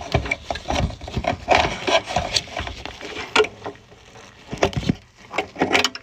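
Plastic wire-harness connectors being unclipped and pulled off a microwave's control circuit board: a run of irregular clicks, scrapes and rubbing of plastic and wires against the board.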